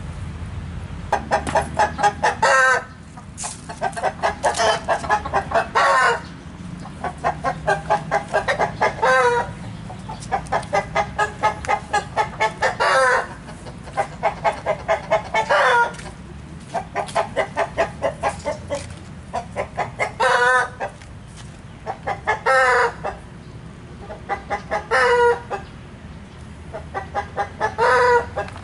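A bird cackling over and over: about nine bouts, each a fast run of clucking notes ending in one longer, louder call, repeated every three seconds or so.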